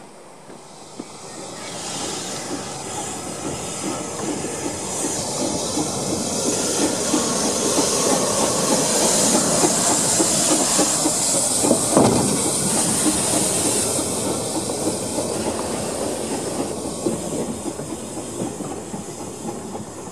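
Small narrow-gauge steam locomotive running past at low speed: steam hissing, with the clatter of its wheels over the rails. It builds up, is loudest in the middle with one sharp knock about twelve seconds in, and then fades as it moves away.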